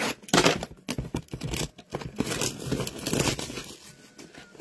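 Shrink-wrapped cardboard blaster boxes of trading cards being handled and slid over a table, with a run of irregular plastic crinkling and cardboard scraping.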